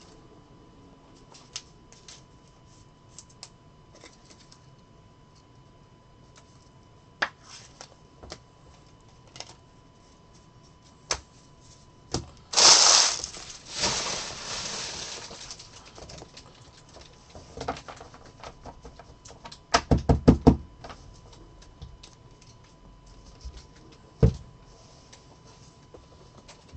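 Trading-card packs and cards being handled on a tabletop: scattered light clicks and taps, a burst of pack-wrapper rustling about halfway through, a quick run of knocks a few seconds later, and one sharp knock near the end.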